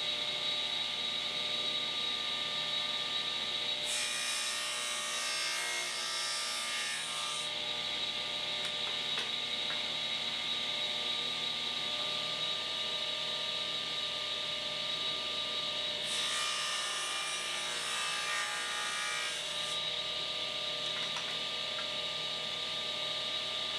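Table saw running with a steady whine while its blade cuts a shallow groove into small wood side pieces, twice: each cut lasts about three seconds, the first about four seconds in and the second about sixteen seconds in.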